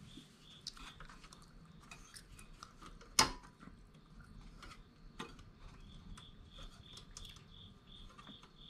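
Small metal clicks and clinks as a valve spring is worked out of the side valve chamber of a snowblower engine by hand, with one sharper clink about three seconds in. A cricket chirps about three times a second in the background.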